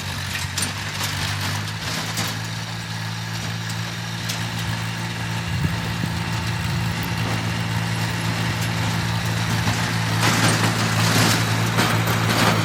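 Heavy diesel machinery engine running steadily, with a louder rushing noise about ten seconds in.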